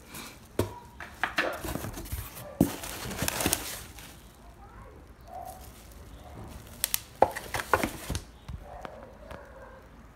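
Bubble wrap crinkling and rustling as wrapped parts are handled in a cardboard box, with sharp clicks. It comes in bursts, busiest in the first few seconds and again about seven seconds in.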